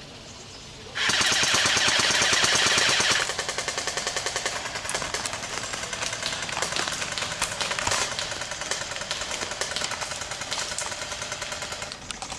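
Airsoft guns firing full-auto: a loud unbroken burst of rapid shots from about one second in to about three seconds in, then more rapid fire, quieter, through the rest.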